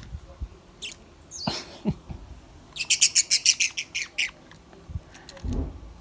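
Budgerigar calling: a single high chirp and a scratchy call, then a quick run of about a dozen sharp chirps about three seconds in. It is being held on a toy car against its will, which the owner takes for fear.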